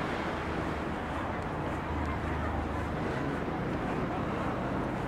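Steady outdoor background noise: a low rumble with faint voices mixed in.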